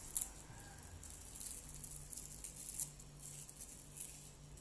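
Eating and food-handling sounds at a table: short, high crinkly rustles several times, over a faint low hum.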